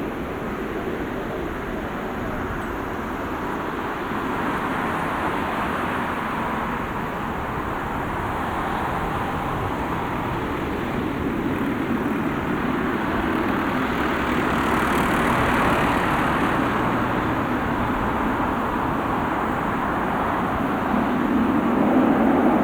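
Jet airliner's engines at takeoff thrust during the departure roll and climb: a steady, broad rushing noise that slowly grows louder, loudest near the end.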